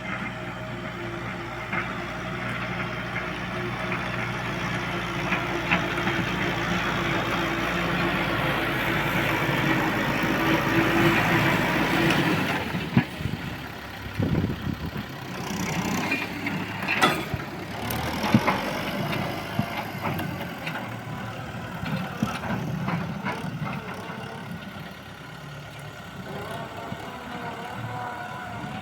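Kubota M6040S tractor's diesel engine running steadily while ploughing, getting louder for the first dozen seconds before the note drops away. Irregular sharp knocks and clanks follow for several seconds.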